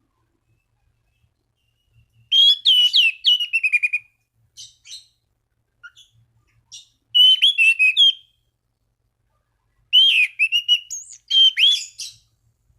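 Anis cendana (orange-sided thrush) in full song: three loud bursts of quick, whistled, sweeping notes, about two seconds in, about seven seconds in and about ten seconds in, with a few single short notes between.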